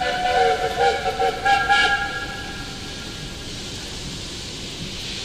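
Steam locomotive whistle sounding a chord of several notes, stopping about two seconds in, followed by a steady hiss.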